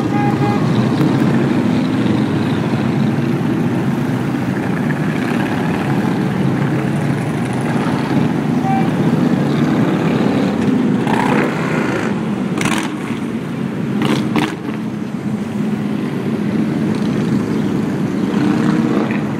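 A procession of motorcycles riding past, their engines making a continuous, loud drone as one bike after another goes by. A few short crackles come in the middle.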